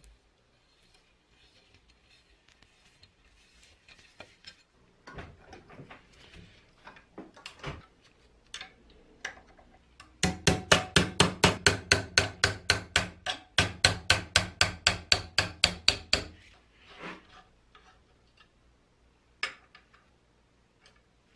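Rapid, even hammer taps on a steel open-end wrench set on a seized threaded cap held in a bench vise, about six taps a second for some six seconds with a brief break midway: shock-loosening a stuck thread. Scattered clicks and scrapes of handling come before and after.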